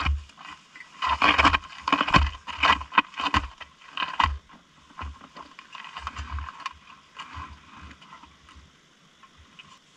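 Irregular metallic clunks, scrapes and rattles as a fallen motorcycle, a Bajaj Avenger 220 Cruise, is hauled upright on rocky ground, with heavy thumps among them; busiest in the first four seconds or so, then fainter and sparser.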